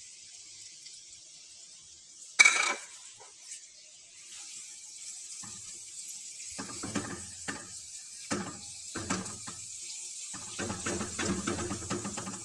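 Chopped onions sizzling in hot oil in a metal karahi, a steady high hiss. About two and a half seconds in, one sharp loud clatter of metal on the pan; from about halfway on, repeated short scrapes and knocks of a spoon stirring the onions.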